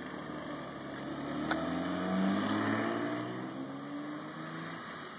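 Mitsubishi Eclipse coupe's engine accelerating as it drives off, the pitch rising and loudest about two seconds in, then fading as the car moves away. A sharp click about a second and a half in.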